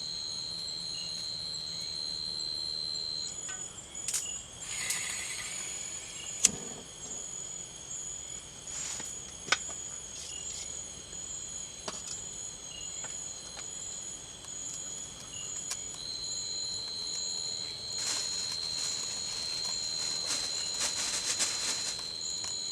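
Tropical forest insects: a steady high-pitched buzz that stops about three seconds in and comes back past the middle, over a faster pulsing chirp, with two brief rasping trills. A few sharp knocks cut in, the loudest about six and nine seconds in.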